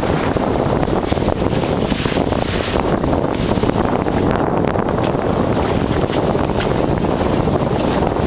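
Strong gusty wind buffeting the microphone, a loud, fluttering low rumble with a few faint clicks.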